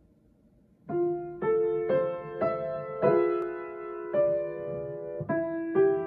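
Kawai grand piano beginning a slow, gentle piece about a second in, a melody note struck roughly every half second over held lower notes.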